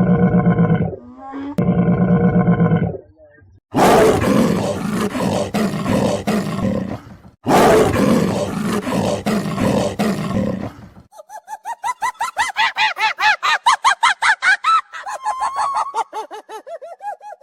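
A run of different animal calls: two short pitched calls, then two long rough roars, then a fast series of short chirping calls, about five a second.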